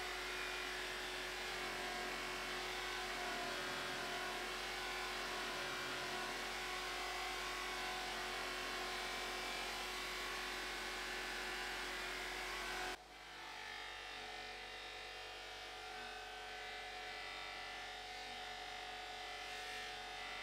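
Bench polisher motor running steadily, the antique iron's metal body pressed against the spinning buffing wheel so that a whir mixes with a rubbing hiss. About two-thirds of the way through the sound changes abruptly to a quieter, higher-pitched steady whine.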